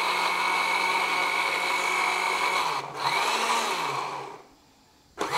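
Electric blender grinding onion, garlic, green chillies and ginger with a little water into a paste. It runs steadily, cuts out for a moment near the three-second mark and starts again, winds down to quiet about four and a half seconds in, and is switched on again right at the end.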